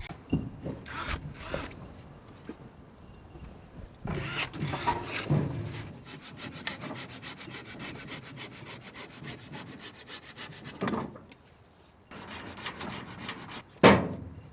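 Rapid, even scraping strokes, about ten a second, for several seconds in the middle, with scattered scrapes and knocks before them and a sharp knock near the end.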